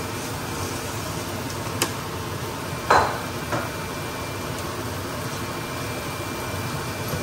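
Steady whir of a kitchen exhaust fan running, with a light click about two seconds in and a sharp clatter about three seconds in, followed by a softer one.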